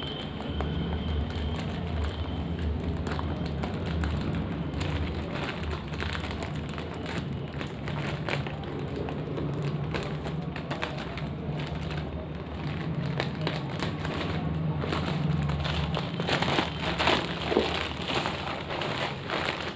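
Plastic courier mailer bag being cut open with scissors and pulled apart by hand: a run of crinkling and crackling that gets heavier and louder near the end, over a steady low hum.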